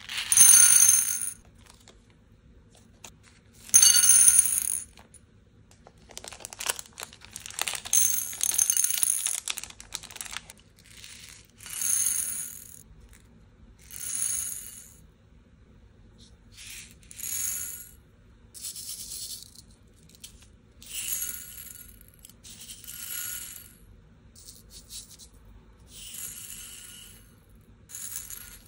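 Glass beads, crystals and pearls poured in small batches from a plastic bead tray into a porcelain bowl: a series of short clinking rattles about a second long, the bowl ringing with each pour. The first two pours are the loudest, and near the end fingers stir the beads in the bowl.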